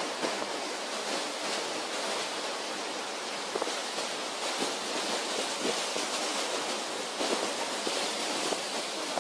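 Stormy sea around a large ship's bow: a steady rushing hiss of breaking waves and spray, with wind.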